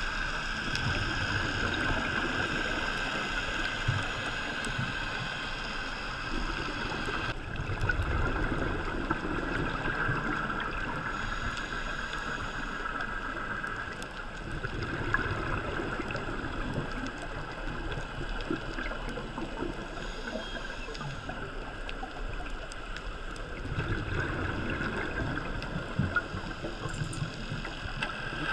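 Underwater sound picked up by a GoPro Hero 3 in its waterproof housing: a steady hiss with a faint constant hum, broken every several seconds by low gurgling rushes of the diver's exhaled regulator bubbles.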